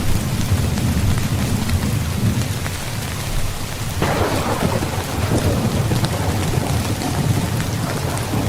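Heavy rain falling steadily under a low thunder rumble. About four seconds in, a sharper thunderclap breaks in and rolls away over the next few seconds.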